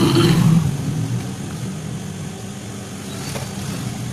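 Electric sewing machine stitching fabric at speed. It stops about half a second in, and a quieter steady hum carries on after.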